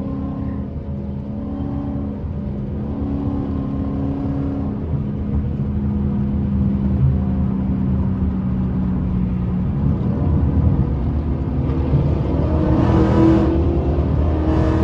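Ford Mustang GT's 5.0 V8 heard from inside the cabin while driving, a steady drone over road noise that swells louder in the last few seconds.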